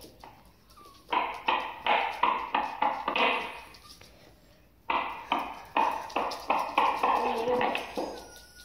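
A plastic fidget finger stick clacking as it is flipped and handled, with two runs of quick taps at about three to four a second and a pause between them.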